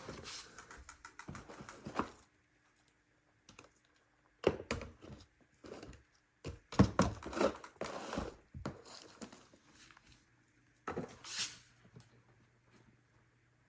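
Handling noises: irregular clicks, knocks and rustling in a few short spells, the loudest knocks about seven seconds in.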